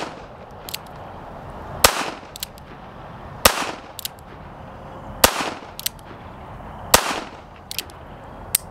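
Switch Gun mini revolver in .22 Magnum (.22 WMR) firing: four sharp shots about 1.7 s apart, the first coming just after the tail of a shot at the very start. Fainter clicks fall between the shots as the single-action hammer is cocked for the next round.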